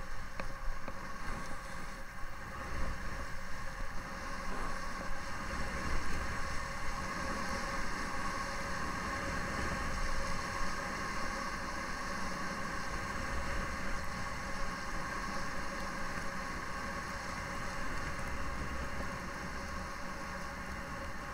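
Steady rush of wind over the microphone, mixed with the hiss of sliding down a packed-snow ski slope, rising and falling a little without a break.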